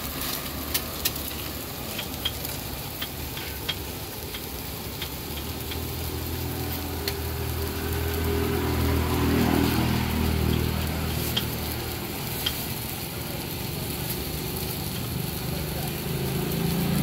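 Dosa batter sizzling on a hot flat iron griddle, with sharp metal clicks scattered through it, most of them in the first few seconds. A low rumble swells and fades in the middle.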